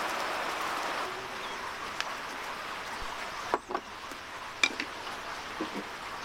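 Rain falling on wet brick paving, easing after about a second. Then a few short knocks, with the wooden spoon against the wooden bowl as it stirs tomato paste, the loudest about three and a half and four and a half seconds in.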